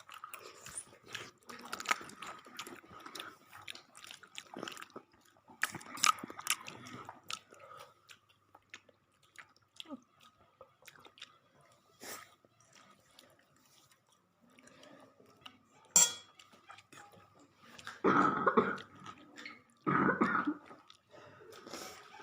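A person chewing and crunching food close to the microphone, with many small crisp crunches: egg toast with crunchy fried snacks. There is a sharp click about two-thirds of the way through, and two louder short bursts near the end.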